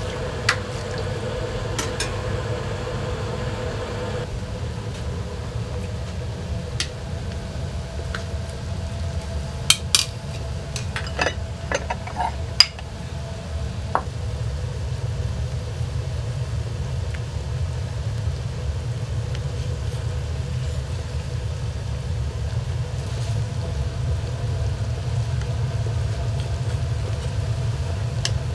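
Metal ladle stirring a large aluminium stockpot of steaming broth, clinking against the pot a few times, most often about ten to thirteen seconds in, over a steady low rumble.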